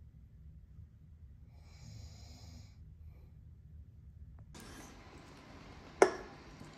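A low steady rumble, with a faint high-pitched call about two seconds in. Then a hiss starts, and near the end comes a single sharp knock with a short ring: a wooden spoon striking a glass soup bowl.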